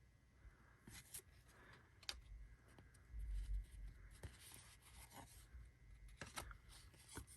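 Faint clicks and light rustles of Allen & Ginter baseball cards being handled and slid one behind another, with a soft low bump about three seconds in.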